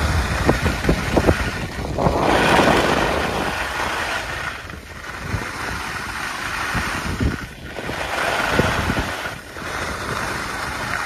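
Skis hissing and scraping over groomed snow while skiing downhill, with wind buffeting the microphone in low gusts, strongest in the first second or so and again about two-thirds of the way through.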